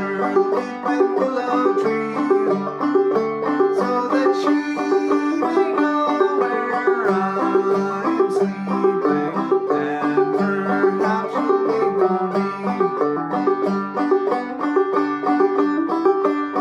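Gold Tone CC-Carlin 12 open-back five-string banjo played clawhammer (frailing) style: a steady, even run of plucked melody notes over the ringing drone.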